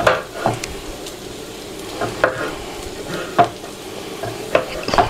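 Kitchen knife cutting on a board, about seven sharp irregular knocks, over the steady sizzle of onions frying on low heat in a lidded pan.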